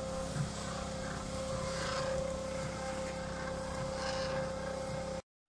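Small electric cement mixer running, its drum turning a batch of cob (earth, water and straw): a steady motor hum with one constant tone. It cuts off suddenly near the end.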